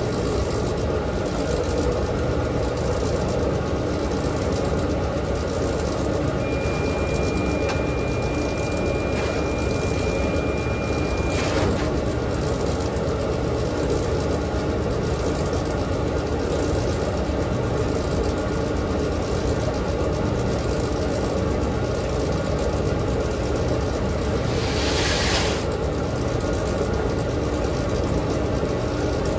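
Dexter T900 commercial front-load washer running mid-cycle, a steady low hum and rumble of motor and drum. A thin high steady tone sounds for about five seconds partway through, and a short hiss comes near the end.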